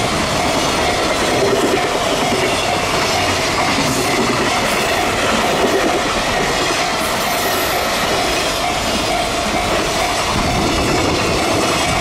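Container wagons of a freight train rolling past close by, their wheels clickety-clacking over the rail joints in a steady, continuous run.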